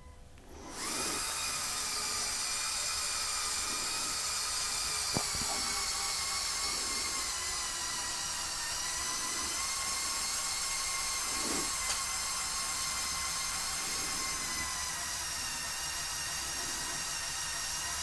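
LEGO Technic 42129 Mercedes-Benz Zetros trial truck's electric motors and gear train whining steadily as it crawls under load, starting up about a second in after a brief pause.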